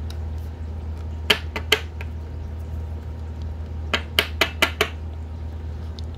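Sharp hard-plastic clicks and taps from handling a sleeved trading card against a clear acrylic card stand: two clicks about a second in, then a quick run of five about four seconds in, over a steady low hum.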